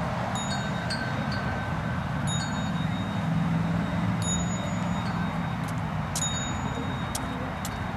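A small metal ritual bell struck about every two seconds, each strike ringing out with a clear high tone, over a steady low rumble.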